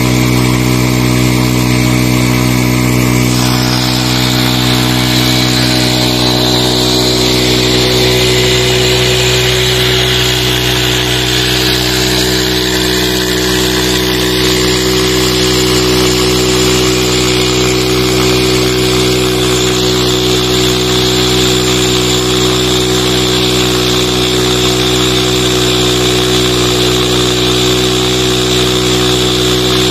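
Honda CD 70 motorcycle's single-cylinder four-stroke engine running at a steady speed, belt-driving a tubewell pump, with water gushing from the discharge pipe into a concrete tank; the splashing grows louder about three seconds in.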